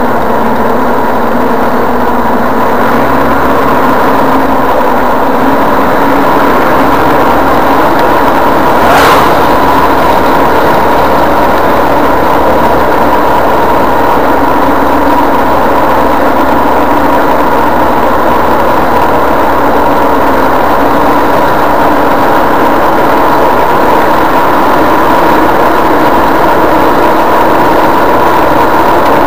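Car cruising at steady highway speed, heard from inside the cabin: a steady engine drone over tyre and road noise. A single brief sharp tick about nine seconds in.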